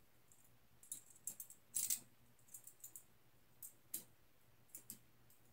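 Scattered light clicks and crinkles of fingers handling small Beyblade top parts and a sticker sheet, with a louder short crackle about two seconds in.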